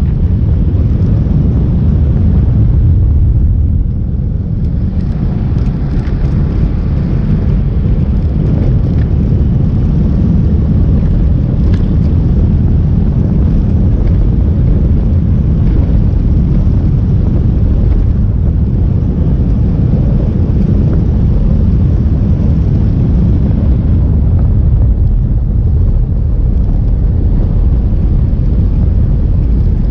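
Onboard sound of a motorcycle riding along a winding road: a steady low rumble of engine and wind buffeting the microphone.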